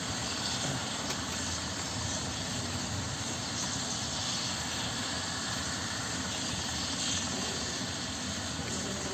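Helicopter's turbine engine and main rotor running on the ground at a steady pitch, a continuous hiss with a low rumble underneath.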